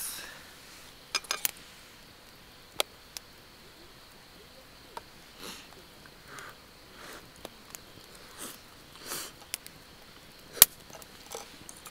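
Split-wood fire crackling in a small fire grill, with scattered sharp pops and clicks, the loudest near the end. Soft short rustling puffs come in between.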